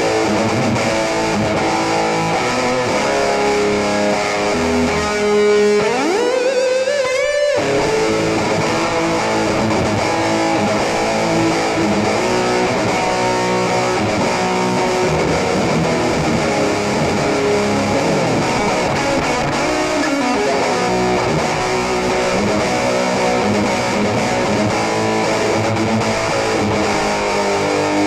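Les Paul electric guitar, tuned down to E flat, played with distortion: a continuous run of rock riffs and lead lines. About six seconds in, one note slides up in pitch over a second and a half.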